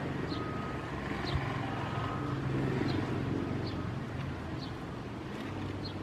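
Diesel-electric locomotive approaching from a distance, its engine a steady low rumble. Short high chirps repeat about once a second over it.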